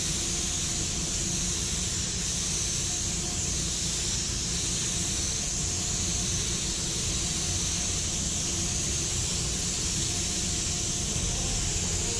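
Gravity-feed spray gun hissing steadily as compressed air atomises paint onto a car body, over a steady low rumble.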